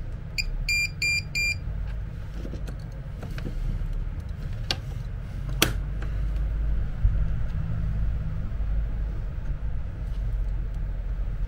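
Control box of an electric patient lift giving four short, high electronic beeps about a second in, followed a few seconds later by two sharp clicks as the box is handled, over a steady low hum.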